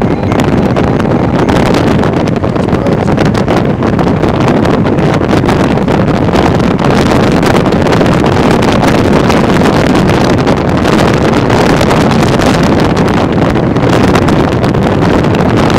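Loud, steady wind noise on the microphone, strong storm wind buffeting it.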